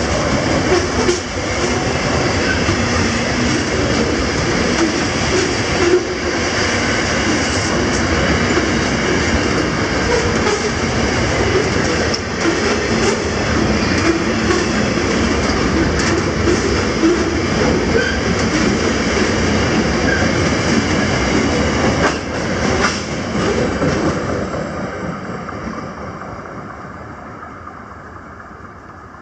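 Freight train of boxcar vans rolling past close by: a steady rumble of steel wheels on rail with irregular clacks over the rail joints. The sound fades away after the last wagon passes, about four-fifths of the way in.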